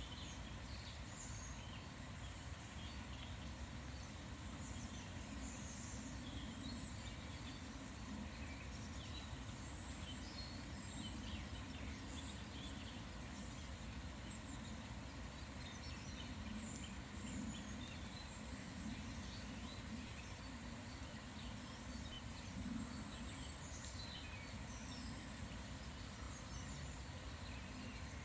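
Small songbirds chirping and singing, many short high calls overlapping throughout, over a steady low background rumble.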